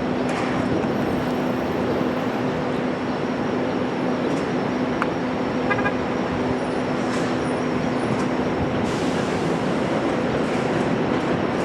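Steady city traffic noise with a low, even hum. From about nine seconds in, a hissing rail noise builds as an elevated subway train draws near.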